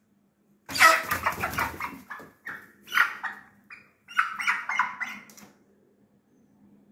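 Hen squawking in alarm in a series of harsh bursts, with a scuffle of wing flapping at the loudest, first burst; it falls quiet about five and a half seconds in.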